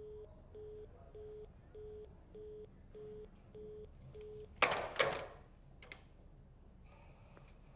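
Desk telephone busy tone coming from the handset, a string of about eight short, evenly spaced beeps: the other end has hung up. Then the handset clatters twice as it is set down on its cradle, with a lighter knock after.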